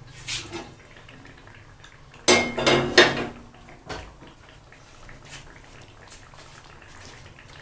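A metal spoon clattering and scraping against a cooking pot, a brief loud burst of clanks with a metallic ring a couple of seconds in, with a lighter knock before and after.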